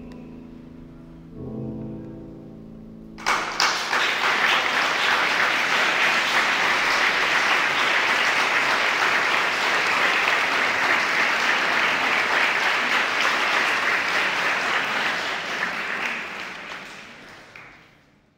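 A classical piece ends on held final notes; about three seconds in, audience applause breaks out suddenly, holds steady, and dies away near the end.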